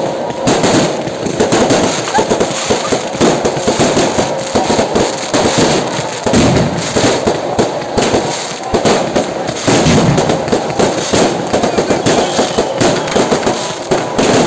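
Fireworks and firecrackers going off in a dense, continuous barrage of rapid bangs and crackles, with aerial shells bursting overhead.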